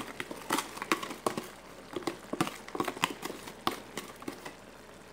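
Light, irregular clicks and taps, a few a second, from a clear plastic container being shaken and tapped over a pan as chopped herbs are sprinkled onto a simmering stew. The taps stop about four and a half seconds in.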